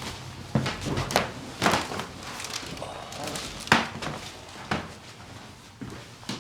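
Irregular knocks, thumps and rustling as a patient climbs onto a padded chiropractic treatment table and settles face down. The loudest knock comes a little past halfway.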